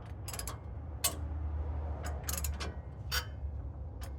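Hand ratchet clicking in short runs as it is worked back and forth on a rusted exhaust flange bolt, heated red hot and just starting to turn.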